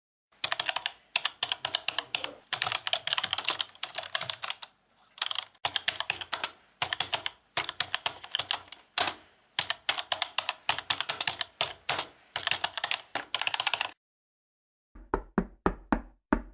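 Typing on a computer keyboard: quick runs of keystrokes with short pauses between them. Near the end come a handful of separate, heavier taps.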